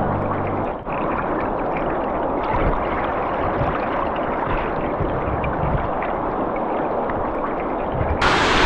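Steady rush of the Torsha river's fast, muddy water running against the bank, an even noise without rhythm that grows louder near the end.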